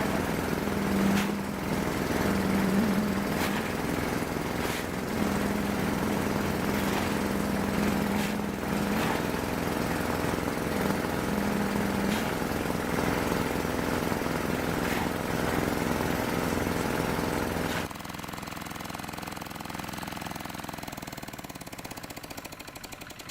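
A small engine running steadily with a fast, even chug, with a few sharp clicks over it. About three-quarters of the way through it suddenly gets quieter, then slows down, its pitch falling as it winds down.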